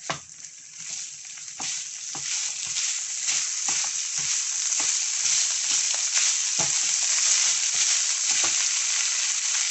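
Minced chicken frying in a non-stick pan, sizzling steadily while a spatula stirs and scrapes it, with soft knocks of the spatula against the pan about every half second. The sizzle grows louder over the first few seconds.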